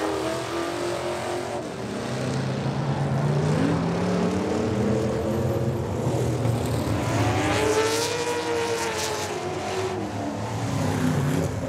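Dirt-track stock race truck engines running as the trucks drive past on the oval, the engine note rising and falling as each goes by, with a pass early on and another around the middle to two-thirds of the way.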